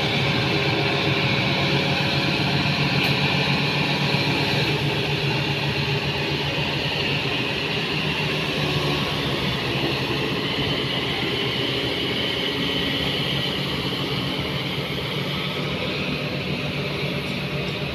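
Kobelco SK350 hydraulic excavator's diesel engine running steadily under load as the machine lowers a concrete U-drain section, a constant engine drone with a higher-pitched hiss above it.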